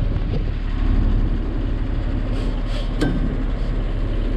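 Boat engine running steadily with a low rumble, and three short clicks about two and a half to three seconds in.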